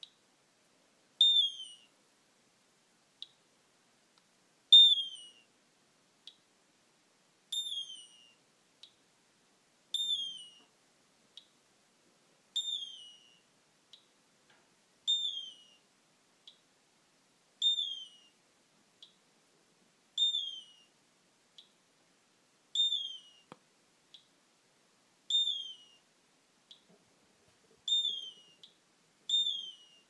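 Hand-built electronic bird-cry circuit: a short, whistle-like cry that falls in pitch, repeating about every two and a half seconds. Each cry is followed by a faint click, an unwanted artifact of the circuit.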